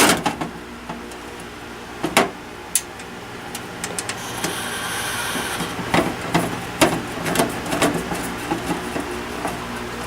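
Metal clicks and knocks from handling a desktop PC case while a hard drive is fitted into its bay, with a longer scraping slide about four to six seconds in.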